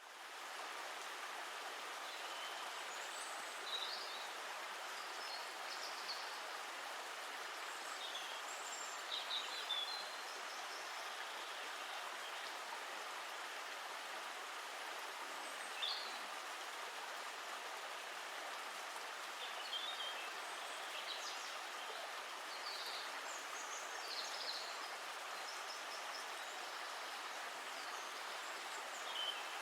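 Steady rushing and babbling of a flowing stream, with short high bird chirps now and then.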